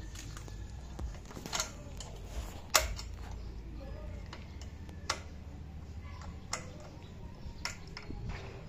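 Screwdriver and hand tools clicking and knocking against the metal and plastic parts under a Suzuki Smash 115's seat: about five sharp, scattered clicks, the loudest about three seconds in.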